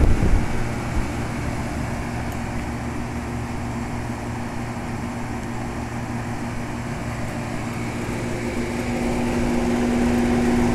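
York Champion IV 'Tombstone' central air-conditioner condensing unit, circa 1975, running flat out on a hot day. Its dual condenser fans blow air with a steady hum beneath, and the level swells slightly toward the end.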